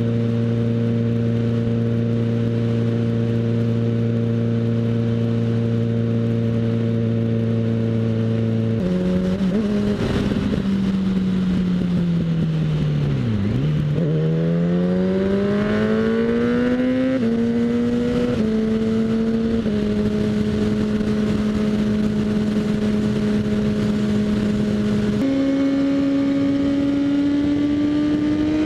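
Kawasaki ZX-6R 636's inline-four running through a Graves Motorsports slip-on exhaust with the dB killer removed. It holds a steady note at cruise, then the pitch falls and climbs again as the bike slows and accelerates, with a few small steps in pitch and a steady stretch. About 25 seconds in it switches suddenly to a higher note that keeps slowly rising.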